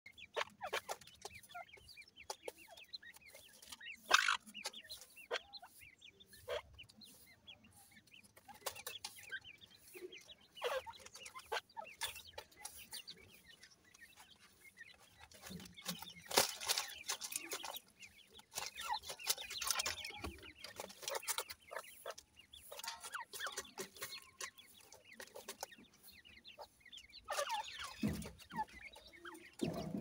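Francolin (teetar) hen and chicks calling: short, scattered chick calls and soft clucks, mixed with small clicks of pecking on gravel.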